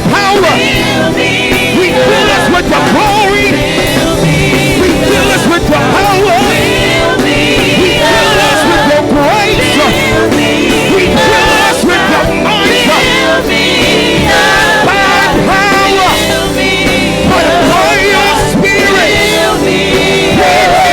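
Gospel worship music: a band playing with singers, loud and continuous.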